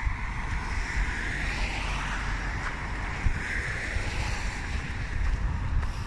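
Wind buffeting the phone's microphone in a steady low rumble, over a hiss of traffic on the street that swells twice.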